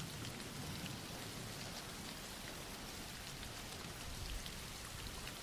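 Soft rain falling steadily: an even hiss with scattered faint drop ticks.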